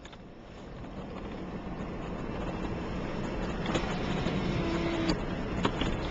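A motor vehicle running, a steady noise that grows louder over the first few seconds, with a few sharp clicks later on.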